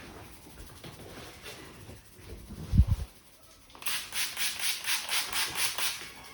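Hands rubbing rapidly over a person's hair and scalp during a head massage: a fast, even run of rubbing strokes, about six a second, lasting some two seconds. A dull low thump comes a second before the rubbing starts.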